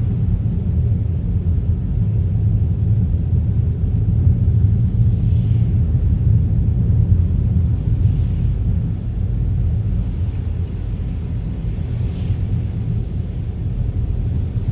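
Car driving at a steady pace: a constant low rumble of tyres and engine, with a faint swish every few seconds.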